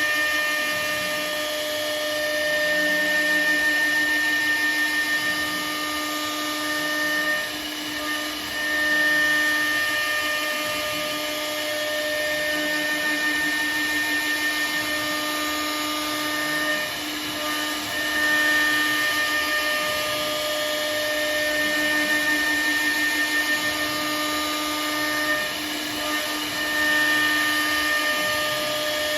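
CNC router spindle running and milling, a steady high whine over cutting noise that dips briefly a few times as the tool moves through its passes.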